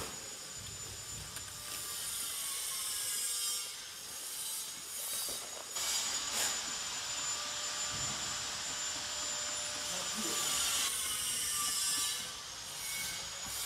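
Clear plastic wrapping film rustling and crinkling as hands press and slide it along a flow wrap machine's steel bed. A faint steady high tone runs under it and stops about eleven seconds in.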